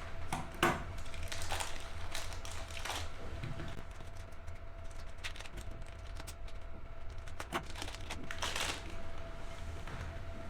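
Meat grinder working colored mud through it: irregular squishing clicks and crackles over a steady hum.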